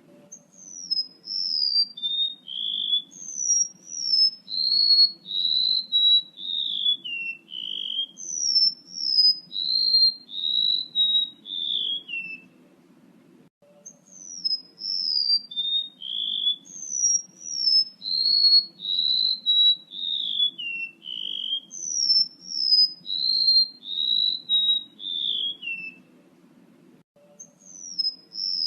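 Bird-lure recording of a male rementuk laut calling: long phrases of short, clear whistled notes, each sliding down in pitch, the phrase as a whole stepping from high to lower. A phrase lasts about twelve seconds and is followed by a pause of a second or two before it starts again. A low steady hum runs underneath.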